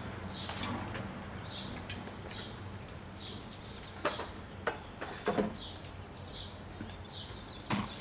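A bird chirping over and over, a short high falling note about twice a second, over a faint steady hum. A few sharp metallic clicks and knocks come about four to five seconds in and again near the end.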